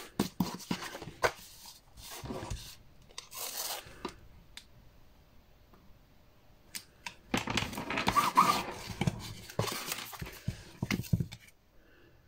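Paper and double-sided tape being handled: scattered sharp clicks and short bursts of noise, then a denser few seconds of handling noise from about seven seconds in, which stops shortly before the end.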